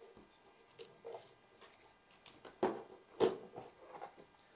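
Hard plastic robot-vacuum parts being handled and set down on a table: scattered light clicks and taps, with two sharper knocks a little past the middle.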